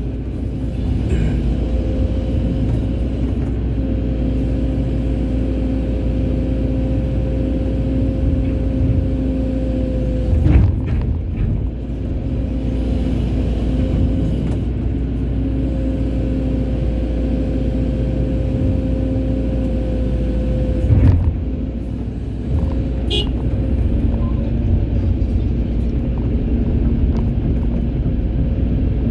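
Excavator's diesel engine running steadily with a constant whine from the hydraulics. Twice the whine breaks off with a short knock, about a third and about two-thirds of the way through.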